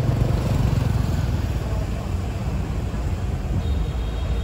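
Street traffic with motorbikes riding along a city street, under a steady low rumble of road and wind noise from the moving vehicle that carries the microphone.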